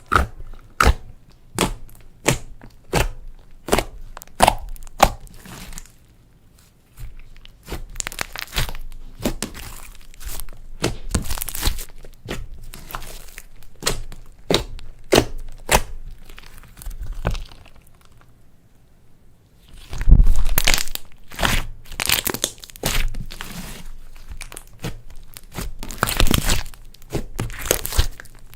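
Hands squishing and stretching slime mixed with crushed makeup and glitter: sticky popping clicks, about two a second at first, then denser crackling and crinkling, with a brief lull and louder squelches after it.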